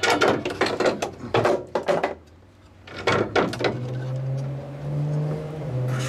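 Metal clicks and rattles as a bolt is worked into the steel mounting bracket of an LS swap gas pedal, in two bursts with a short pause between. A low steady hum takes over for the last two seconds.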